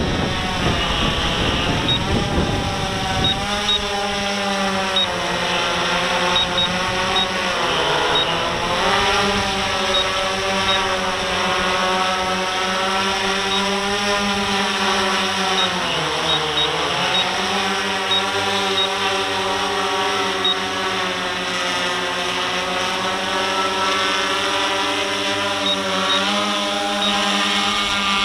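RC Timer S1100 octacopter's eight electric motors and propellers whirring as it takes off, hovers and climbs. The whir is made of several tones at once, and its pitch sags and rises again as the throttle changes.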